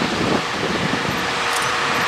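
Wind buffeting the microphone while a diesel-hauled freight train approaches in the distance, its engine and wheel noise growing steadily louder with a faint steady tone.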